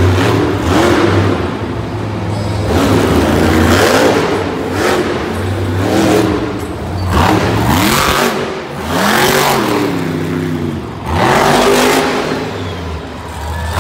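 El Toro Loco monster truck's supercharged V8 revving hard in repeated surges, its pitch climbing and dropping several times as the throttle is opened and closed.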